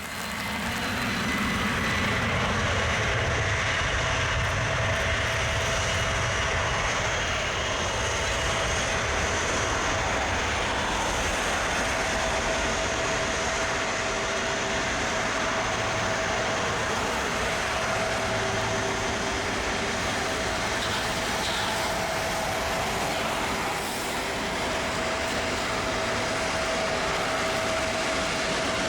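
Airbus A330-200's Rolls-Royce Trent 700 jet engines running steadily at low thrust as the airliner taxis: a continuous jet rumble with a faint steady whine.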